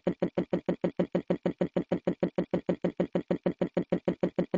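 Telephone ringing sound effect: a steady, rapid electronic trill of even buzzing pulses, about ten a second, with no break.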